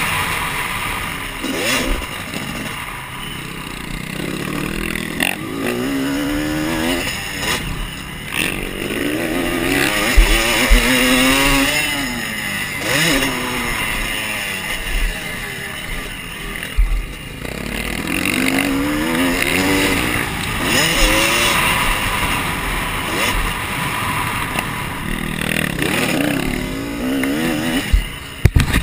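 Dirt bike engine revving up and falling back again and again as the rider accelerates and shifts around a motocross track, with a few sharp knocks along the way.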